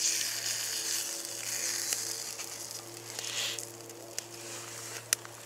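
An egg-battered ham and cheese sandwich sizzling in a hot cast-iron frying pan, the sizzle flaring up suddenly as it is turned onto its uncooked side and dying down after about three and a half seconds. A single sharp click near the end.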